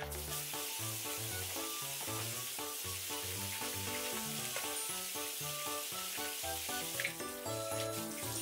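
Tap water running steadily from a kitchen mixer tap into a stainless-steel sink as hands are washed under it, with background music playing.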